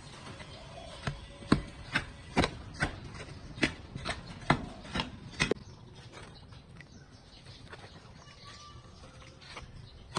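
A metal hoe blade scraping and chopping through a dry sand-and-cement mortar mix on concrete, about a dozen sharp scrapes roughly twice a second. About halfway through the strokes stop and only quieter, softer stirring of the wetted mix follows.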